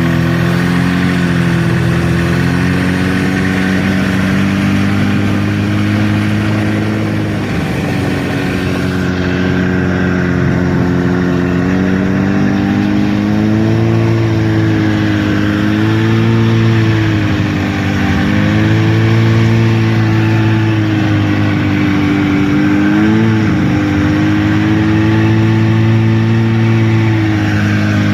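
Buran snowmobile's two-stroke engine running steadily, its pitch rising and falling gently with the throttle.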